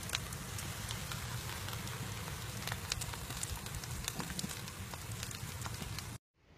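Meat, potatoes and carrots sizzling in a roasting pan on a barbecue grill: a steady crackling hiss with scattered pops and spits over a low rumble. It cuts off abruptly near the end.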